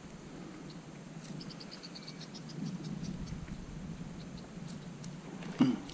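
Faint outdoor background with a brief high trill of rapid chirps about a second and a half in, then a sudden loud splash near the end: a big fish striking at the lure on the surface and missing it.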